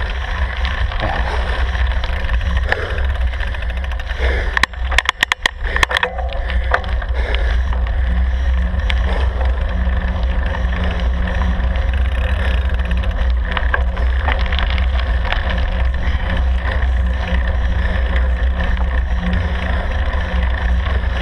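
Steady wind rumble buffeting the microphone of a vehicle-mounted camera riding along a road, with a low steady hum beneath it. A quick cluster of sharp knocks and crackles comes about five seconds in.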